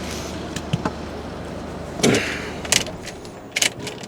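A few sharp clicks and knocks of small parts being handled, with a short scraping sound about two seconds in that drops in pitch.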